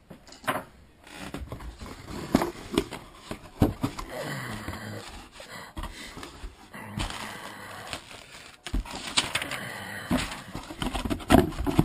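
Cardboard shipping box being opened and handled: flaps scraping and bending, irregular rustling of cardboard and plastic wrap, with scattered knocks as the contents are touched.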